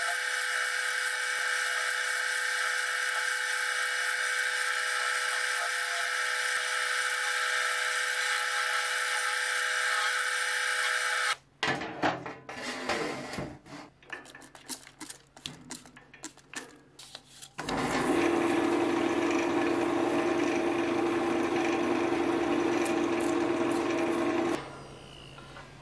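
Epoxy resin and wood piece turning on a wood lathe while a turning tool cuts the resin: a steady high whine and hiss for about eleven seconds. Then comes a stretch of irregular metallic knocks and clatter as a steel sheet by the lathe is handled. After that the spinning piece is worked by hand with a flat sheet held against it, a steady hiss over a low hum, which stops shortly before the end.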